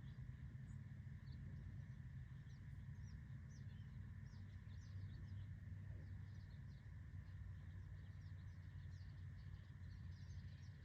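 Faint outdoor ambience: birds chirping in many short, quick calls over a low, steady background rumble.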